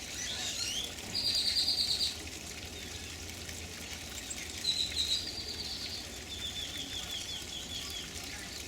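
Small songbirds singing: a few high chirps, then a buzzy trill about a second in. A shorter buzzy trill comes near the middle, followed by a quick run of short, evenly spaced notes dropping slightly in pitch.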